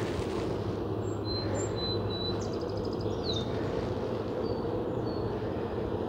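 Steady hum of a honeybee colony around an open hive while frames are lifted out. Birds chirp faintly over it, with a quick trill and a falling whistle near the middle.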